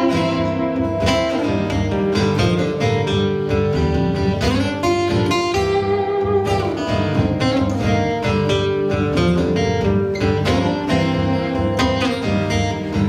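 Acoustic guitar strummed in an instrumental break of a song, with a melody line that slides up and down in pitch about halfway through.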